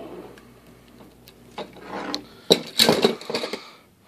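Plastic shrink-wrap on a cardboard booster box being slit with a utility knife and torn, with a few light clicks at first and then crinkling, rustling bursts over the second half.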